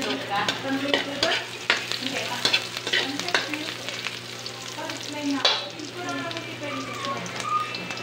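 Sliced garlic and onion sizzling in oil in an aluminium wok while a metal ladle stirs them, clicking and scraping against the pan many times.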